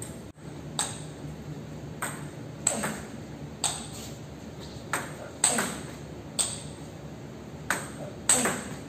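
Table tennis rally: the ball clicking sharply off the rubber-faced rackets and bouncing on the table, about ten hits spaced a half second to a second apart. Each hit rings briefly in the big hall.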